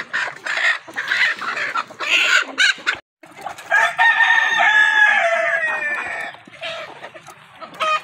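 A flock of Sonali chickens clucking, then a rooster crows once: a long call of about two and a half seconds that begins a little past the middle. The sound drops out briefly just before the crow.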